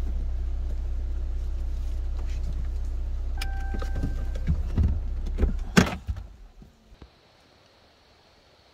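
Jeep Cherokee Trailhawk idling with a steady low hum. A short electronic chime sounds for about a second, then come a few clicks and a loud sharp clack from the door. The engine hum stops about six seconds in as the engine is switched off.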